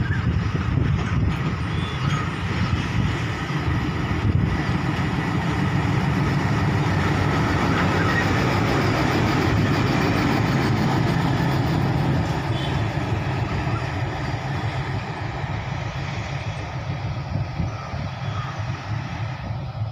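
WDG3A diesel locomotive running past with a steady low engine rumble and the clatter of its train of loaded flat wagons on the rails. It is loudest as the locomotive draws level, about halfway through, then eases off.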